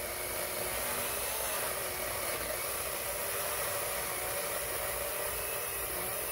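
Greenworks 40-volt cordless electric chainsaw running steadily, its chain cutting into a tree trunk.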